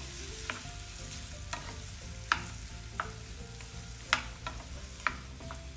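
Wooden spatula stirring chopped tomatoes in hot oil in a nonstick frying pan over a light sizzle, with sharp irregular knocks of the spatula against the pan about once a second. The tomatoes are being sautéed until soft.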